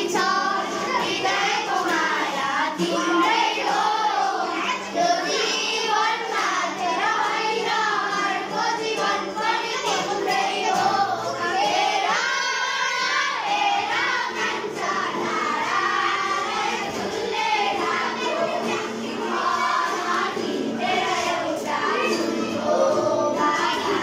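A group of children singing a song together in chorus, without a break.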